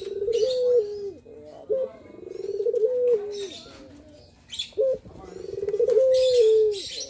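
Male ringneck dove (puter) giving its full manggung coo three times over. Each phrase opens with a short rolling, rising trill and runs into a long drawn-out coo that drops away at the end.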